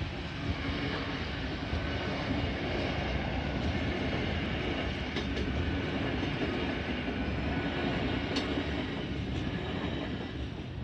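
Great Western Railway Intercity Express Train passing at speed: a steady rumble of wheels on the rails, with a few sharp clicks in the second half.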